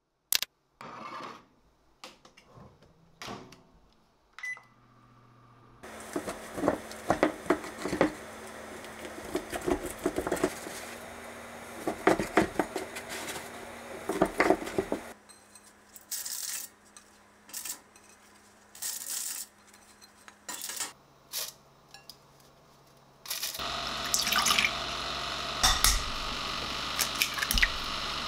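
Kitchen prep sounds: a knife cutting thick bread on a wooden cutting board with many quick knocks, and clinks of dishes and a glass bowl. Near the end a steady rushing noise runs under the clinks, and an egg is knocked against the glass bowl and cracked.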